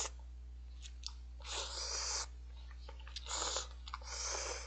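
A person slurping instant ramen noodles from a cup held close to the mouth: three long slurps, about a second and a half in, past three seconds and near the end, with small mouth clicks between.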